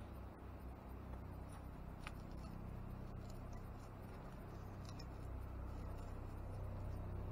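Faint rustling and rubbing of a hammock suspension strap being wrapped and knotted around a tree trunk, with a few small clicks, over a low steady rumble.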